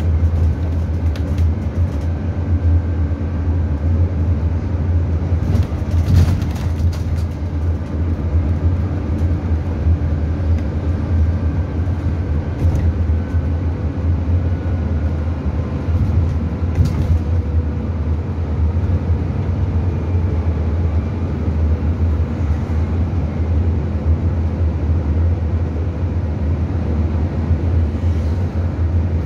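City bus riding along, heard from on board: a steady low engine rumble and road noise, with a faint whine that rises and falls and a few brief clicks.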